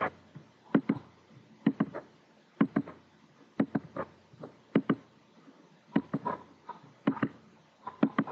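Computer mouse clicking: a sharp click or a quick pair of clicks about once a second, as ports are picked and cables placed.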